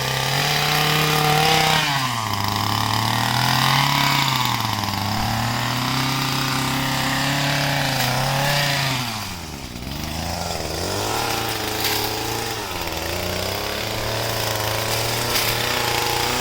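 Small two-stroke engine of a handheld gas-powered tree-cutting tool, its pitch rising and falling repeatedly as branches are cut. It drops low about ten seconds in, then speeds up again.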